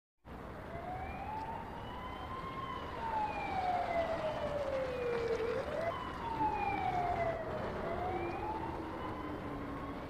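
Police car siren wailing, its pitch sliding slowly up and down about every three seconds, with a second, lower siren tone falling in the second half, over a steady background hiss.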